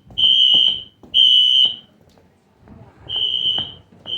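Wheelock NS fire alarm horn sounding in the temporal-three evacuation pattern: loud, high-pitched half-second blasts. Two blasts close the first group, there is a pause of about a second, and then the next group of three begins.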